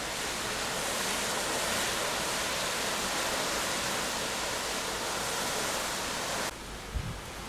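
Steady rushing noise of a cruise ship under way, wind and water going past. It drops off abruptly near the end, followed by a short low thump.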